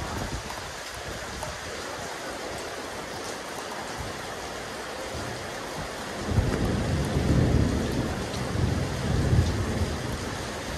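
Steady rain falling on a rooftop terrace. A low rumble swells a little past the middle and lasts about three seconds.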